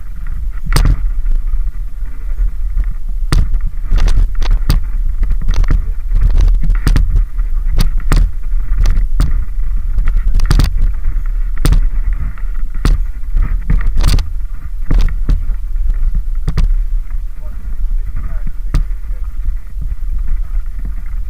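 Mountain bike handled on a dirt trail: irregular knocks and rattles, about one a second, over a steady low rumble.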